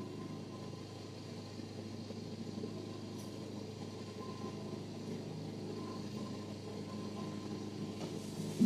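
A motor vehicle engine idling steadily, a low hum with a faint higher tone above it; this is unintended background noise in the recording. A short thump near the end.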